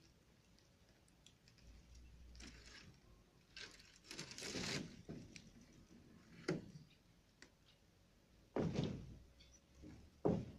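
Irregular knocks and scraping rustles: a longer scrape about four seconds in, a click a little later, a heavier thud near nine seconds and a sharp knock near the end.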